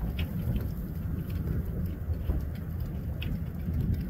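Wind buffeting the microphone in a steady low rumble, with scattered faint crackles over it.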